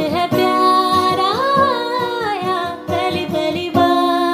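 Hindi pop song playing: a voice sings a slow, gliding melody over a soft, steady beat.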